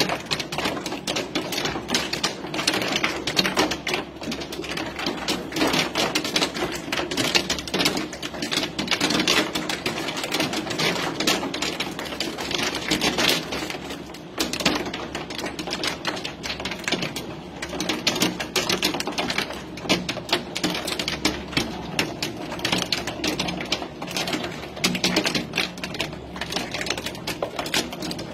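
Heavy hail pelting down: a dense, rapid clatter of hailstones striking hard surfaces, without let-up.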